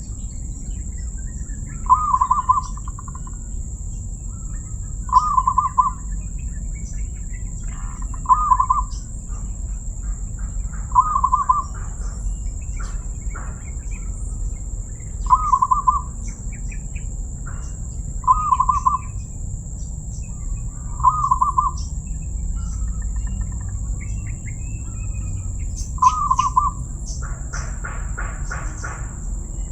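Zebra dove (perkutut) cooing, giving its short rolling call phrase about eight times, roughly every three seconds. A steady high-pitched whine runs behind it.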